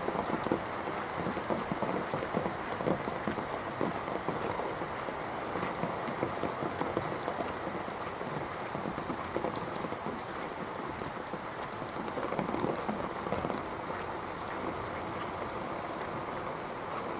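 Steady rain falling on wet paving and the surrounding trees: a dense, even patter of drops.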